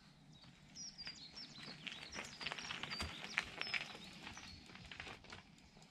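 Small birds chirping in short, high notes, with faint crackling and crunching from a mountain bike's tyres rolling down a dirt trail.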